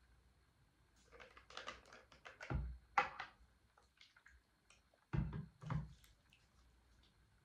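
A plastic toner bottle being handled on a tabletop: small rustles and clicks as the cap comes off, then soft knocks, a pair near three seconds in and another pair about five seconds in, as the cap and bottle are set down.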